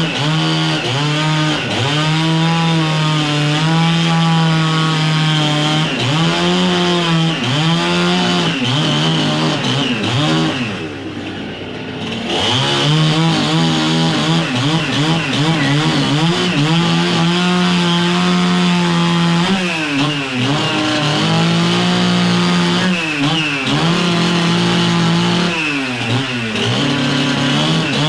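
Chainsaw running loudly, its engine pitch holding steady, then dipping and climbing back again and again, and dropping to a quieter idle for about two seconds near the middle. It stops abruptly at the end.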